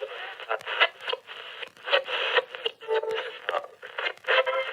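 An old radio being tuned across the dial: choppy static hiss and crackle with clicks, and a brief snatch of a station's tone near the end. The sound is thin, with no bass and no top.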